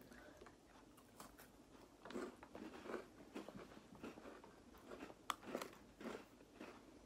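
Two people biting into and chewing white-chocolate-coated Oreo cookies: faint crunching and chewing, with one sharper click about five seconds in.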